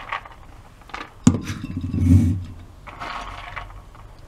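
Soaked urad dal tipped from a plastic tub into a glass blender jar: scattered clinks and rattling, with a sharp knock and a heavier dull thud about a second in as a batch of the lentils lands in the jar.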